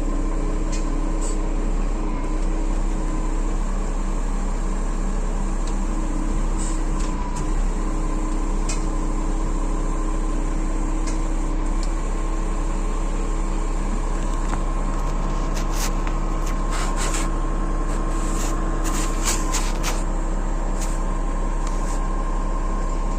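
Heavy-equipment engine running steadily at an even speed, with a run of sharp metallic clicks and clinks partway through.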